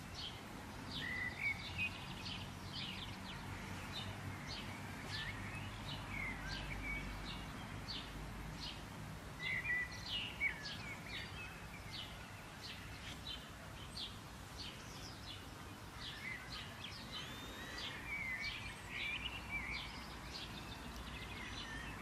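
Wild birds chirping and calling in a field, with many quick, sharp chirps and a few short sweeping calls. A steady low rumble of outdoor ambience runs underneath.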